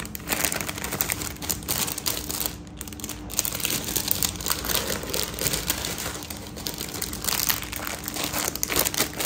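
Plastic jewellery pouches crinkling and rustling as they are handled, a dense run of crackles that eases briefly about two and a half seconds in.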